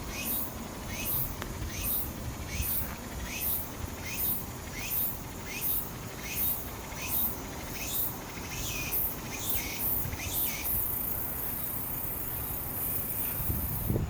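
An insect calling: short high calls repeat about every 0.7 seconds and quicken, then merge into one continuous high buzz for the last few seconds.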